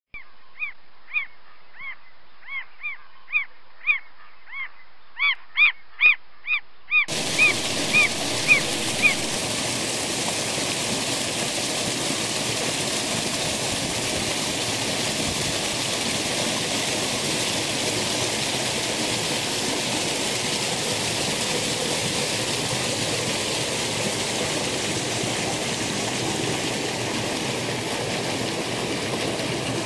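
For the first seven seconds, a quick run of short pitched calls that get louder, trailing off about two seconds after the water begins. About seven seconds in, a rain-swollen stream starts rushing steadily as it spills over a small drop and churns white below.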